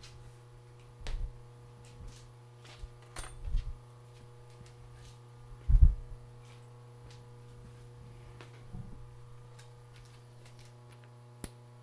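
Scattered knocks and clunks of steel machine-shop tooling being handled, about five of them, the loudest about six seconds in, as a set of taller milling-vise parallels is fetched and sorted. A steady low hum runs underneath.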